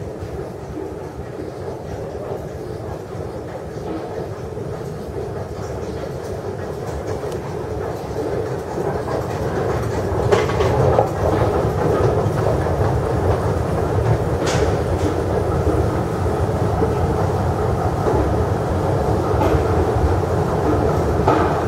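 Escalator machinery running as the escalator is ridden upward: a steady rumble with the rhythmic clatter of the steps and rollers. It grows louder in the first half, then holds, with a few sharp clicks.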